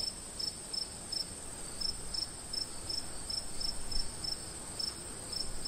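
Night-time insect chorus: a steady, high-pitched trill with short chirps repeating about three times a second over it.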